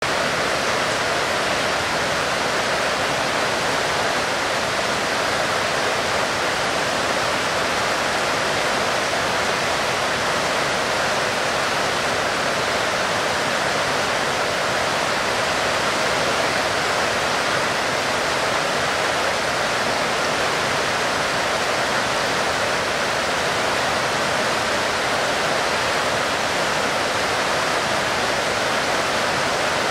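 Heavy rain falling in a steady, even hiss, with no single drops standing out.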